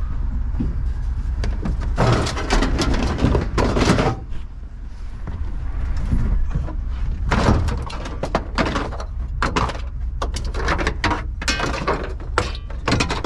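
Scrap appliances and sheet metal being shifted in a pickup truck bed: repeated clattering, scraping and knocks, loudest about two to four seconds in and again from about seven seconds on, over a low steady rumble.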